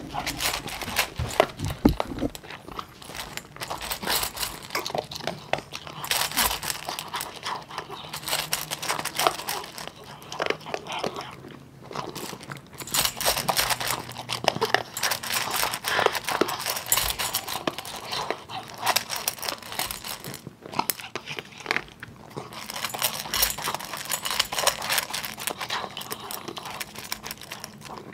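Miniature schnauzer wolfing down dry kibble from a stainless steel bowl: rapid, continuous crunching and chewing, broken by a couple of brief pauses.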